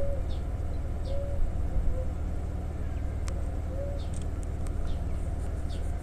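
Steady low hum of a stationary two-car 7800 series electric train at the platform. Birds call over it: a few short, low coos and a high, falling chirp about once a second.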